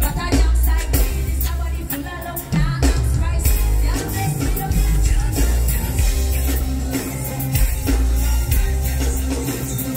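Live band music played loud through a large outdoor PA, with a heavy pulsing bass and drum kit and a voice singing over it.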